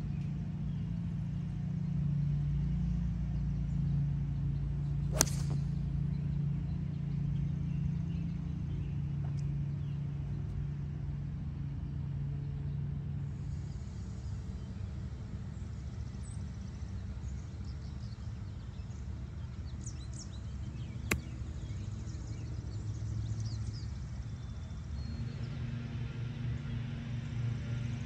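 A golf club striking the ball twice: two sharp cracks about sixteen seconds apart, the first louder, over a steady low hum.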